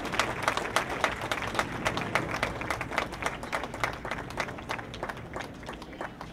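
Crowd applauding, many hands clapping, the clapping thinning out and fading over the last second or two.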